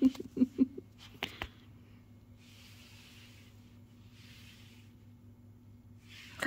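A quick run of five or six short, low-pitched sounds in the first second, then two sharp clicks, then only faint soft rustles until a short louder sound at the very end.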